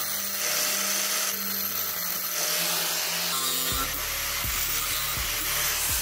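Angle grinder with a thin cutoff wheel cutting through flattened copper pipe: a steady high motor whine over a loud, dense grinding hiss. The whine dips a little in pitch just past halfway as the wheel bites into the metal.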